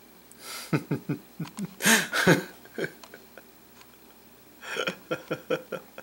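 A man's voice making short, non-word vocal sounds in two bouts, each starting with a breathy rush and breaking into a quick run of pitched pulses.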